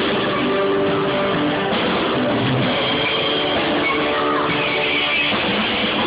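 A small band playing a steady rock groove: drum kit with strummed acoustic guitar and electric guitar, recorded on a cheap phone.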